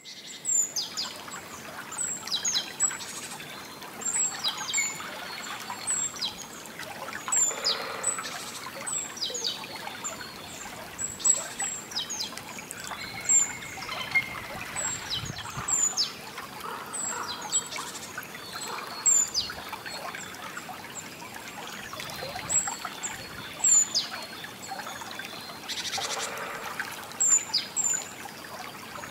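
Small songbirds chirping over and over in short, high notes that slide downward, over a steady trickle of running water.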